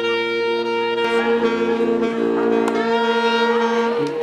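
Street brass band of saxophone, trumpet, trombone and a bass horn playing marching music, holding long sustained chords that shift a couple of times.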